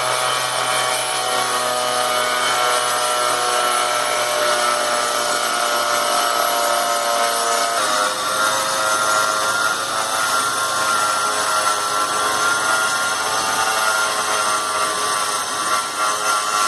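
Electric exhaust fan running, a steady motor whir with a whining hum; its tone shifts about halfway through.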